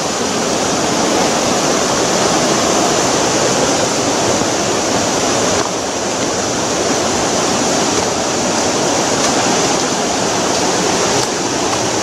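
A river rushing in a rocky canyon, a steady, even noise of flowing water.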